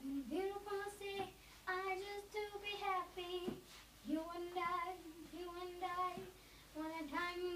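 A young girl singing a pop song unaccompanied, in short phrases of held notes with brief pauses for breath between them.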